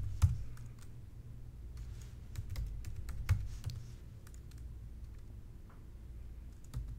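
Computer keyboard keys tapped in short, irregular runs as a password is typed, over a steady low hum.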